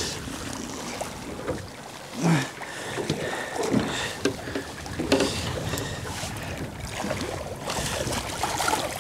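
Choppy water slapping and splashing against the hull of a small open fishing boat, with wind on the microphone. Near the end a hooked dogfish splashes at the surface as it is drawn to the boat's side.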